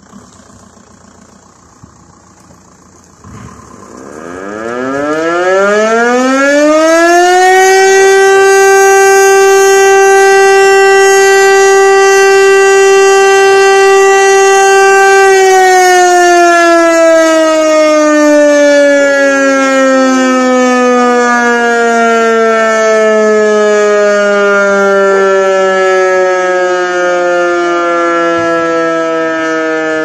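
Outdoor warning siren sounding a test: after a few quiet seconds it winds up in pitch over about four seconds, holds one loud steady tone for about eight seconds, then slowly winds down, still sounding as it ends.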